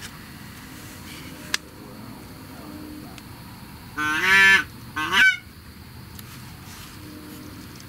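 Geese honking: two loud honks about four and five seconds in, the second short and breaking upward in pitch, with fainter honks from the flock before and after. A single sharp click comes about a second and a half in.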